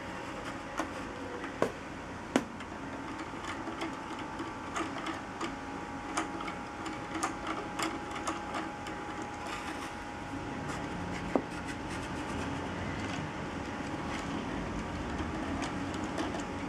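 Plastic LEGO Technic gears and beams clicking and rattling as a hand-turned crank drives a rotary-to-linear mechanism, over a steady low rumble. A few sharper clicks stand out, two within the first few seconds and one about eleven seconds in.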